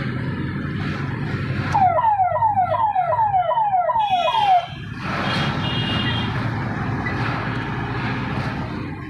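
A vehicle siren sounds a quick run of about seven falling whoops lasting about three seconds, starting a couple of seconds in, over a steady background of road traffic and engines.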